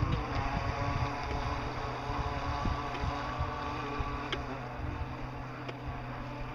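Remote-control boat motor running: a whine with several pitches that drifts up and down as the throttle changes, with wind rumbling on the microphone.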